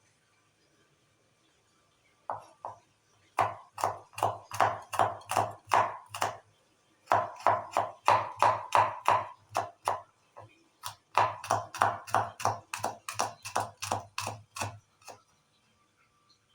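Knife chopping on a cutting board: three quick runs of sharp, even strokes, about three a second, each with a dull knock from the board, broken by short pauses.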